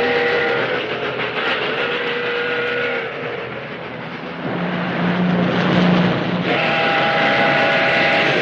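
Cartoon steam-train whistle sound effects: two short whistle blasts, then a lower steady tone for about two seconds, then a long whistle sounding several notes at once from about six and a half seconds in, over a steady rushing noise.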